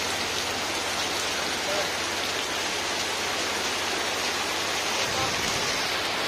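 Heavy rain pouring steadily onto river water, trees and covered boats: a dense, even hiss.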